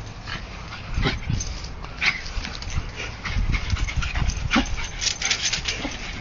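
A dog whimpering with short yips, alongside a few knocks and scuffling.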